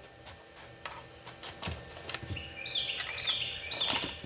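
A bird chirping repeatedly in short high notes through the second half, over scattered light clicks and knocks of tools and metal parts being handled.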